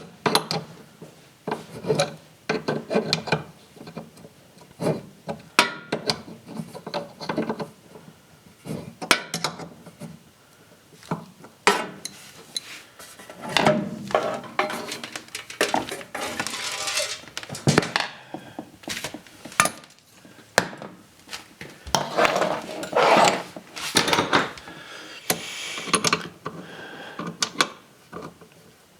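Washing machine parts being handled and refitted: many irregular clanks and taps of hard parts, with stretches of scraping and rubbing about halfway through and again later.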